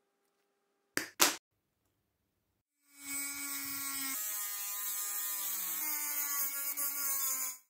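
Side cutters snipping wire twice in quick succession, the loudest sounds here. Then a small electric rotary tool with a cut-off disc runs with a steady high whine as it cuts through a braided silver wire. Its pitch steps down slightly about a second after it starts, and it stops suddenly.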